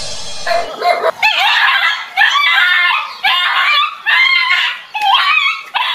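A dog barking repeatedly, about one high-pitched, drawn-out bark a second.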